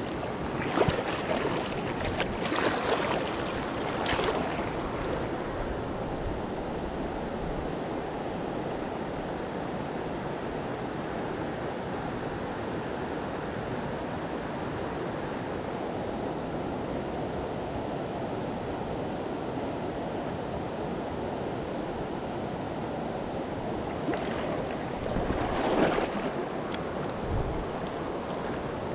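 River water flowing steadily over a rocky bed, the river running high with snowmelt. Twice, near the start and near the end, a louder rush of noise rises over it for a couple of seconds.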